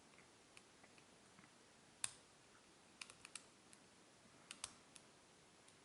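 Faint small clicks of a lock pick working the pin stack of a Yale pin-tumbler cylinder: a sharper click about two seconds in, then clusters of tiny clicks around three and four and a half seconds.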